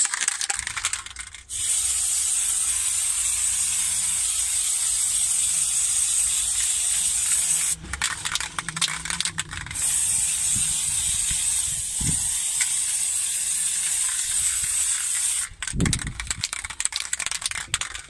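Aerosol spray paint hissing in two long bursts of about six seconds each, laying a light first coat of paint over primer on car-body sheet metal. Between and after the bursts come short spells of clicking and rattling.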